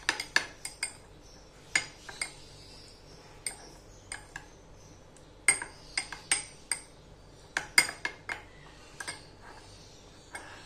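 Metal spoon stirring chopped green chilli and coriander in olive oil in a small glass bowl, clinking against the glass in short runs of sharp clicks with pauses between.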